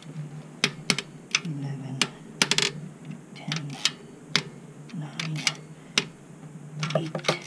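Metal hand tools and small metal parts clinking and clattering: about a dozen irregular sharp metallic clicks with short ringing, over a low steady hum.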